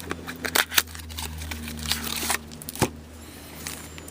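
Trading cards and their plastic pack wrappers being handled on a table: a string of sharp clicks and taps with light crinkling, over a low steady hum.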